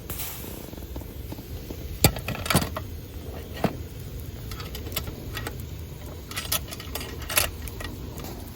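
A handful of light metallic clinks and taps, scattered and irregular, some ringing briefly, over a steady low rumble.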